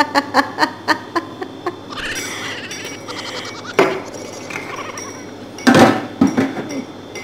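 Rapid ha-ha laughter trailing off in the first second. Then a sharp knock about four seconds in and a louder clatter near six seconds, as kitchenware is handled.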